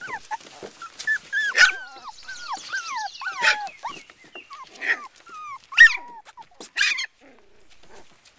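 Cockapoo puppy whining and yelping: a string of short, high cries that fall in pitch, broken by a few sharper, louder yelps. It goes quiet about a second before the end.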